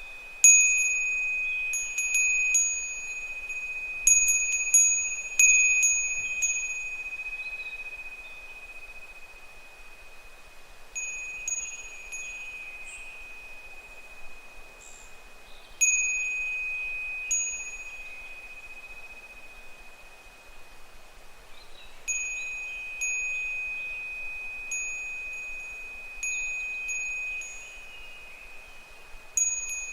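Japanese furin wind bell ringing as its clapper swings in the wind. It strikes irregularly, often in quick clusters, and each strike rings on one steady bright tone with a higher overtone and fades slowly. There are quieter lulls between the clusters.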